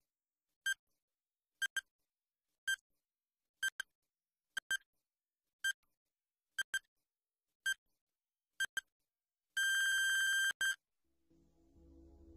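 Electronic countdown-timer beeps: a short high beep about once a second, several of them doubled, ending in one long beep about a second long and a last short pip. Soft ambient synth music then fades in near the end.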